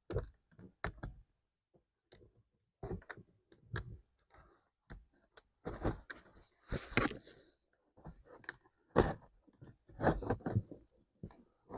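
Irregular plastic clicks and rustling scrapes as a car's dirty cabin air filter is pulled out of its housing by hand.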